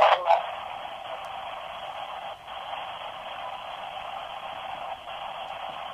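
Spirit box sweeping through radio frequencies: a steady band of static hiss, with a couple of brief louder blips right at the start.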